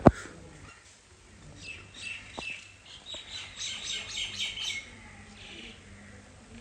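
Small birds squabbling, giving clusters of rapid short high chirps, with a sharp knock right at the start.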